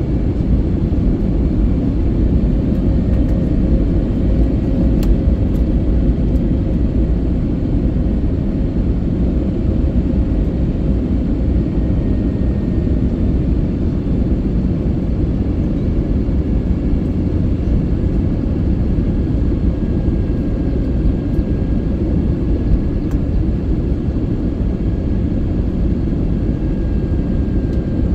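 Airbus A321neo cabin noise on approach: a steady low rumble of airflow and the Pratt & Whitney geared turbofan engines, with faint steady whining tones over it, heard from inside the cabin.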